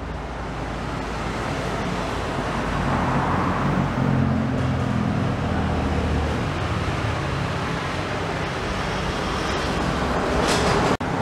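Steady motor-vehicle rumble and hiss, a little stronger in the middle, with one short knock near the end.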